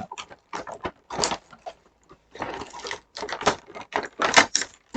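Packaging being handled and pulled at by hand: irregular clicks and knocks with short bursts of rustling as a model-kit part is worked free.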